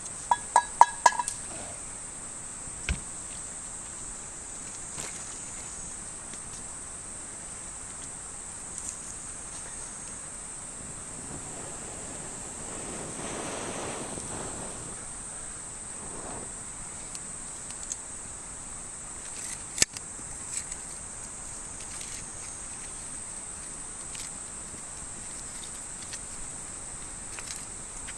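Steady, high-pitched insect chorus, with a quick cluster of sharp clicks about a second in and a soft swell of rushing noise around the middle.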